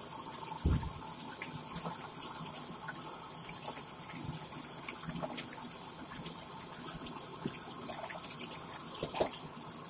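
Kitchen tap running steadily into a sink, with a soft thump about a second in and a few faint clicks from handling in the basin.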